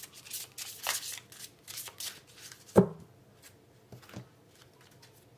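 A deck of tarot cards being shuffled and handled by hand in a run of quick flicks and rustles, then one thump a little past the middle and two light taps after it.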